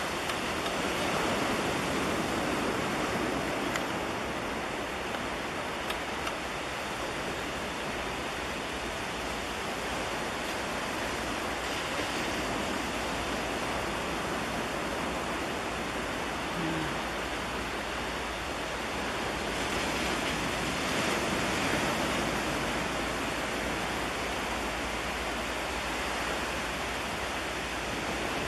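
Steady rushing noise of wind and sea waves at a rocky breakwater, swelling and easing slowly.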